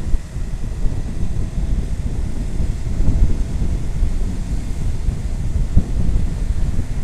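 Wind buffeting the microphone on a moving motorcycle: a steady, gusty low rumble, with the motorcycle's running and road noise beneath it.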